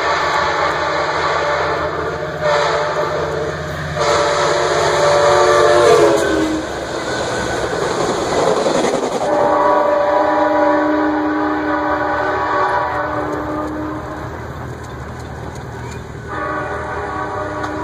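Amtrak Piedmont passenger train sounding its horn in several blasts at a grade crossing. The horn's pitch drops as the locomotive passes about six seconds in, and the rumble and clatter of the passing cars follow. The horn keeps sounding at a lower pitch as the train moves away, with another blast near the end, over the steady drone of the diesel.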